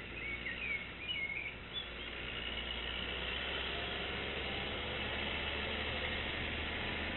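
A small songbird chirping a few short, wavering notes in the first couple of seconds, over a steady outdoor noise that swells and then holds, with a low hum beneath.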